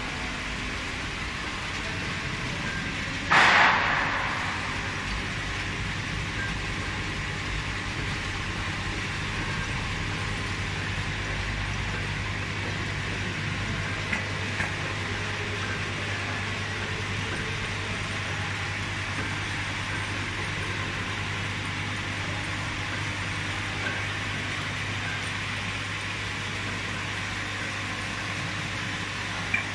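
Eight-head tracking vial filling and capping machine running steadily, a constant mechanical whir with a low hum. About three seconds in a sudden loud burst of hiss lasts under a second, and a few faint clicks come later.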